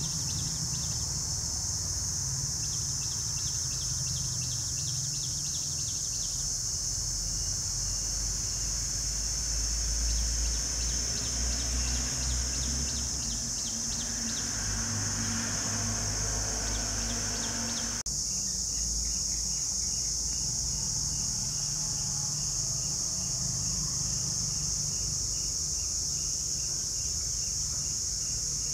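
Outdoor insect chorus droning steadily at a high pitch, with runs of fast repeated chirps at times.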